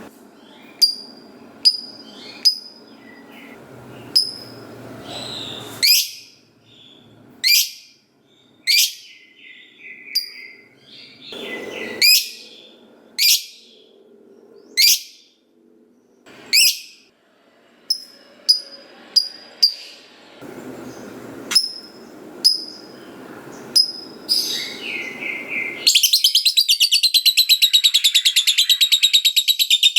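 Lovebird calling: sharp, high single chirps about a second apart, then, with some four seconds to go, a continuous fast rattling chatter. This long chatter is the 'ngekek panjang' that keepers prize in a singing fighter lovebird.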